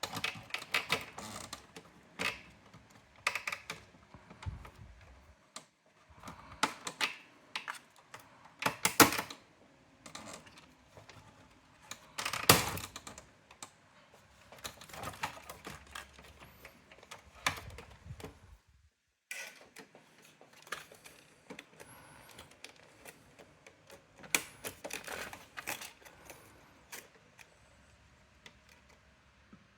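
Parts of a Brother AX-425 electronic typewriter being handled: irregular clicks, taps and knocks of plastic and metal, with a brief pause about nineteen seconds in.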